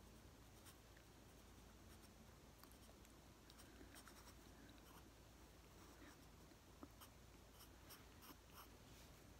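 Faint scratching of a graphite pencil drawing on sketchbook paper, with light ticks of the lead against the page.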